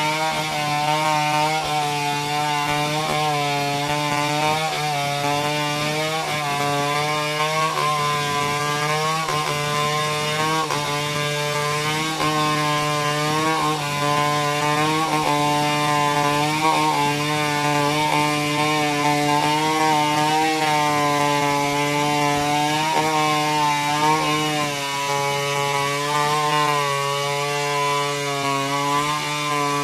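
Chainsaw running continuously as it cuts through coconut palm wood, its engine pitch wavering slightly up and down with the load.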